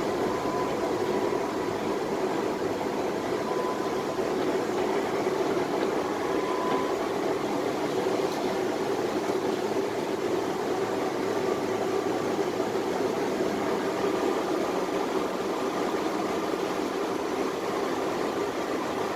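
Steady hum and rumble inside a Tatra T3SU tram, with a faint thin whine above it and no wheel clatter.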